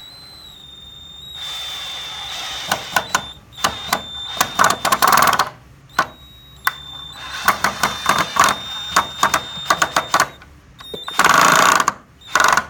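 Cordless drill-driver, sold as a 36 V DeWalt DCD700, whining as its motor spins, with rapid irregular clicking and rattling as it drives screws. It runs in two long stretches with a brief stop between them, then a shorter burst near the end.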